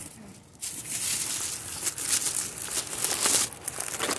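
Rustling, crinkling handling noise of a phone being moved about, with scattered small crackles and a sharp tap near the end.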